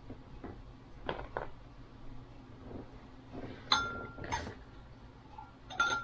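A few light clinks and knocks of a dish being handled, two of them ringing briefly, about four seconds in and again near the end.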